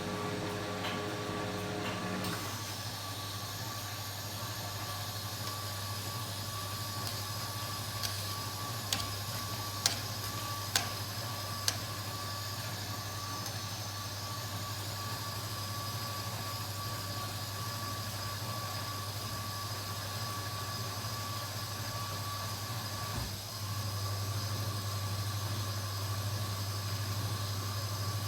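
Kenwood washing machine running with a steady mechanical hum. A few sharp clicks come in the middle, and the hum briefly drops out near the end, then comes back louder.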